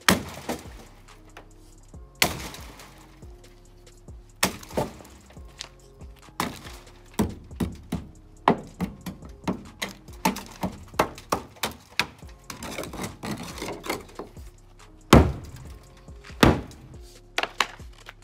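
A string of sharp knocks and thunks as a hockey stick strikes pucks and the pucks hit the stripped Honda Civic's body panels, with a quick run of lighter clicks in the middle. Faint background music plays underneath.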